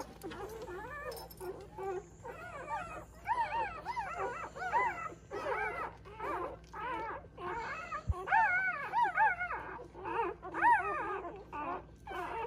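Litter of newborn English setter puppies squeaking and crying while nursing, many short high calls rising and falling in pitch and overlapping one another throughout.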